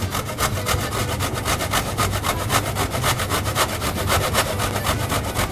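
A whole frozen orange being grated on a stainless-steel box grater: rapid, even scraping strokes over a steady low hum.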